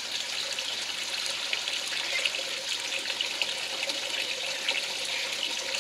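Steady splashing of water: a thin stream pouring into a shallow pond, with drops of switched-on artificial rain pattering on the surface as many small ticks.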